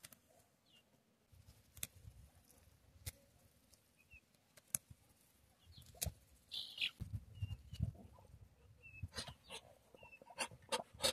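Young chickens peeping faintly in short high chirps, with scattered sharp taps of beaks pecking at a food bowl.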